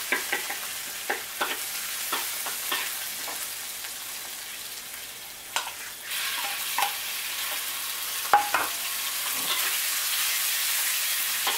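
Oil and roasted chilli paste sizzling in a hot wok, with a spatula scraping and clacking against the pan. About six seconds in the sizzle jumps louder as raw chicken pieces go into the oil, and a sharp clack of the spatula on the wok follows a couple of seconds later.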